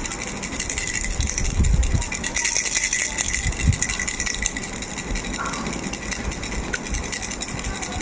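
Pink plastic starfish-shaped baby rattle shaken by hand, rattling continuously with a fast, dense clatter and a couple of low thumps along the way.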